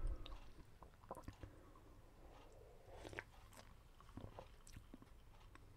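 Faint sipping and swallowing of canned soda: a scatter of small wet clicks and gulps, a few around three seconds in and more about four seconds in.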